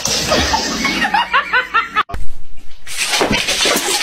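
A person laughing in quick repeated bursts, with a sharp thump about two seconds in.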